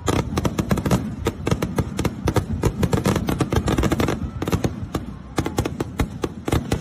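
Diwali firecrackers going off in a rapid, unbroken string of sharp bangs, several a second.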